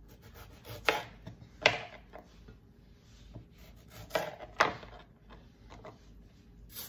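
Kitchen knife slicing tomatoes on a chopping board: four sharp knocks of the blade striking the board, two about a second in and two a little past halfway, with fainter taps in between.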